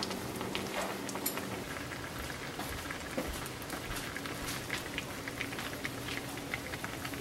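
Pork bone stew (gamjatang) bubbling at a boil, with scattered small pops and crackles over a soft hiss.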